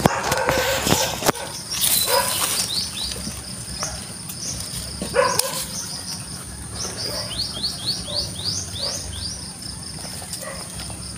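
Garden sounds: a steady high insect whine throughout, and a bird chirping, with a quick run of rising chirps about two-thirds of the way through. Short rustles of leaves and vines come as cucumbers are cut from the trellis with scissors.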